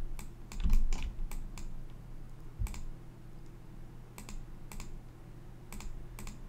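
Scattered clicks of a computer mouse and keyboard at irregular spacing, with a couple of soft low thumps, over a steady low hum.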